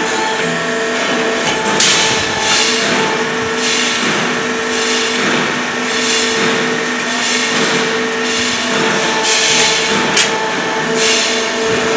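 Leaf spring production line machinery running: a steady hum with several pitches, overlaid every second or two by clattering, hissing surges of metal work.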